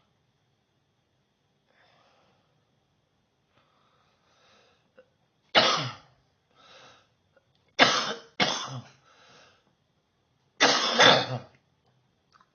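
A person coughing in three bouts: one hard cough about halfway in, two close together about two seconds later, and a longer double cough near the end. Fainter breaths are drawn in between the coughs.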